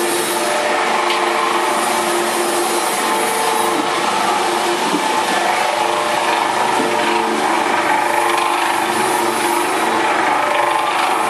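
Electric gear motor driving the vertical stirrer of a stainless steel jacketed cooking pot, running steadily with a constant hum and several steady whining tones.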